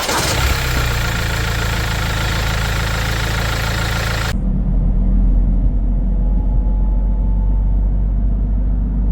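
Mahindra XUV500 engine idling steadily with a newly fitted crankshaft pulley, the pulley that had caused its knocking noise. About four seconds in, the high hiss cuts off suddenly, leaving a low, steady hum.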